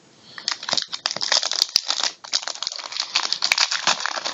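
Wrapper of a trading card pack crinkling as it is torn open and handled: a dense, irregular run of crackles starting about half a second in.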